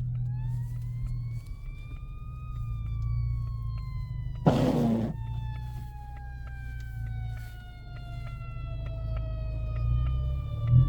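An emergency vehicle siren ahead of the car, one long wail that rises for about two seconds and then slowly falls in pitch. It sounds over the steady low rumble of the car on the road. A short loud burst of noise comes about four and a half seconds in, and faint regular ticking runs through the second half.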